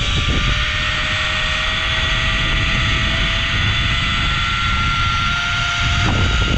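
Zipline trolley pulleys running along the cable with a whine that rises slowly in pitch as the rider speeds up, under heavy wind rush on the microphone.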